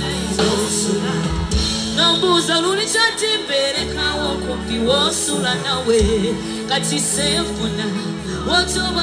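Live band music with a female lead singer's vocals over bass and drums.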